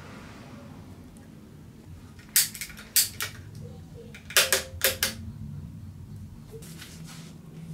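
Shimano 7-speed trigger gear shifter clicking as its levers are pressed through the gears. There are a few sharp clicks about two and a half seconds in, then a quicker run of clicks about four and a half seconds in.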